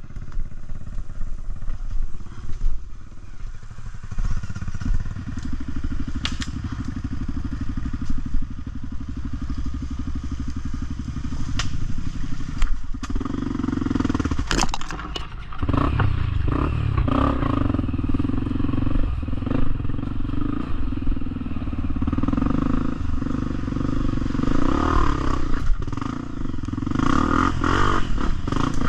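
Off-road motorcycle engine running over a dirt trail, its pitch and load rising and falling, with a clear step up in engine level about halfway through. Scattered sharp knocks and clatter run through it.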